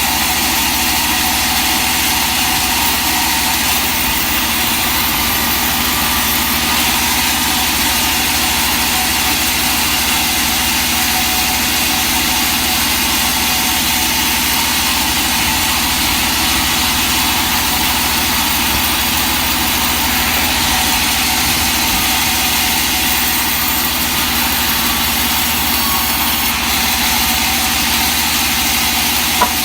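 Sawmill machinery running steadily with an engine-like hum, unchanging throughout, and a single short click near the end.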